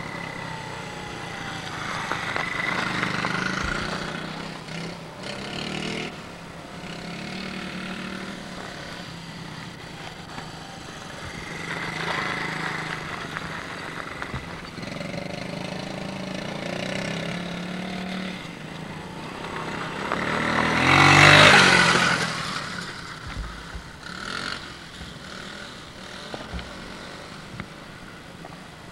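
Small children's minibike engines running and revving as the bikes are ridden, the engine pitch rising and falling again and again. About two-thirds of the way through, the sound swells loudly for about two seconds.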